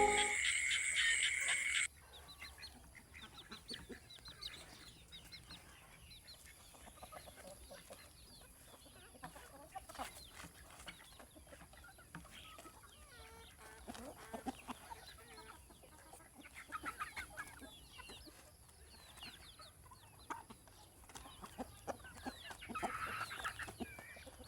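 Chickens clucking faintly in short, scattered calls, with a louder call near the end. Music plays at the start and cuts off suddenly about two seconds in.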